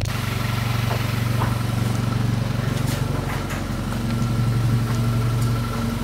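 Car engine running steadily: a low, even hum.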